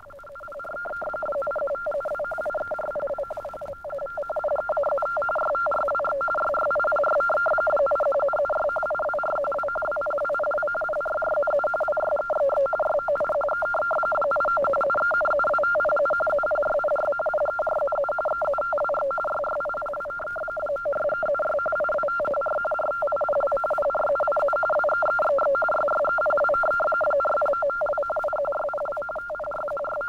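Frequency-shift-keyed teleprinter radio signal: a steady electronic tone flipping rapidly between a lower and a higher pitch as it keys out teleprinter code, giving a fast warbling chatter.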